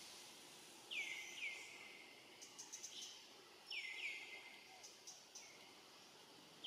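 Short, high animal chirps that fall in pitch, mostly coming in pairs a couple of seconds apart, with a few faint clicks between them.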